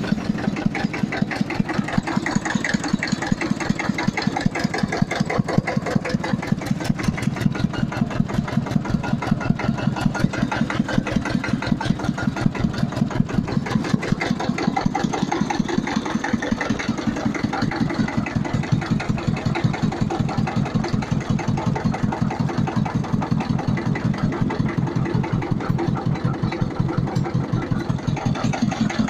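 Small Hebei tractor's engine idling steadily, with an even, rapid firing beat.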